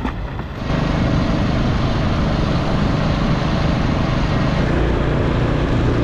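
Small boat engine running steadily, with a step up in loudness just under a second in.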